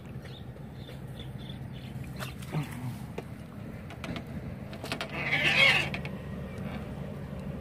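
Water splashing for about a second, a little past the middle, as a hooked fish is scooped out of the water in a landing net. A steady low hum runs underneath.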